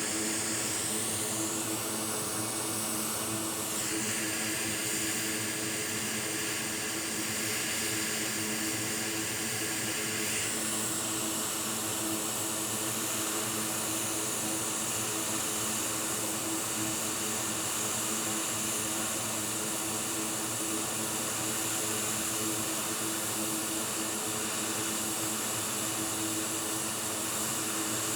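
Hot air rework station blowing a steady jet of air with a low hum over a logic board while a transistor is reworked; the hiss shifts about four and ten seconds in.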